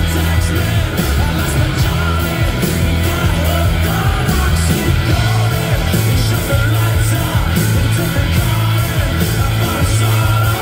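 Live rock band playing loud: electric guitars, bass and drums keeping a steady beat, heard from within the audience.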